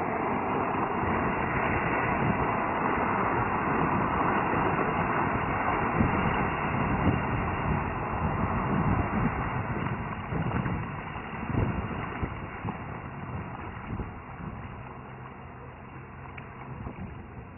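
Bayliner Ciera 2155 Sunbridge cabin cruiser running at speed, its engine and the rush of spray from the hull mixed with wind on the microphone. It grows quieter over the last several seconds as the boat comes off the plane.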